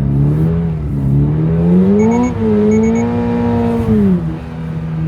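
Toyota GR86's 2.4-litre flat-four engine revving while being driven on snow: the engine note climbs for about two seconds, holds, then falls back just past four seconds and settles. Two quick sets of short electronic beeps sound around the middle.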